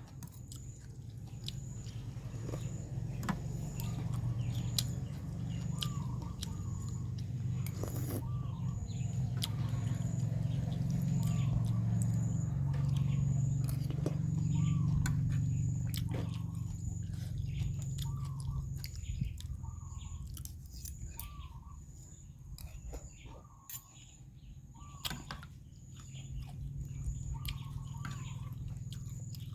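Chewing and eating sounds with scattered short clicks, over a steady low rumble that swells in the middle. A bird repeats a short chirp about every second and a half.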